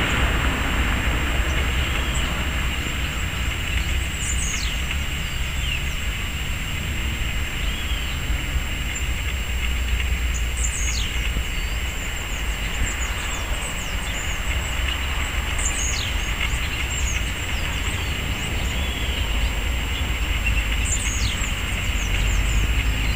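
A small bird gives a thin high call that sweeps down in pitch, four times about five to six seconds apart, with a few short high chirps between. Under it runs a steady low rumble with a faint steady high whine.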